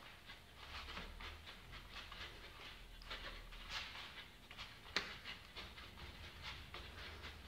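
Faint, irregular quick scuffs and hissy strokes from a boxer shadowboxing in gloves, a few a second, with one sharper click about five seconds in.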